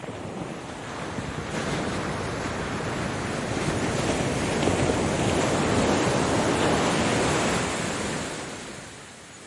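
Ocean waves. One swell of surf builds over the first few seconds, is loudest around the middle, then washes back and fades near the end.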